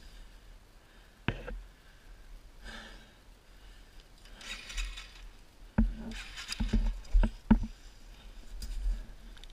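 Scattered knocks and taps with two brief rustling bursts around the motorcycle while it stands stopped on the rock, without an engine note: handling noise of the rider and the bike.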